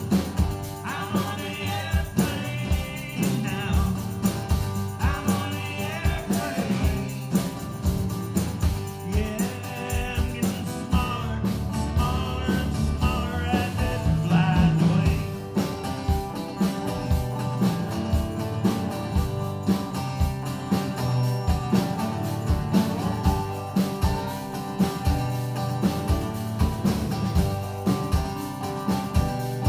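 Live acoustic band playing an instrumental break: a lap steel guitar plays a sliding lead line over strummed acoustic guitars and a steady hand-percussion beat.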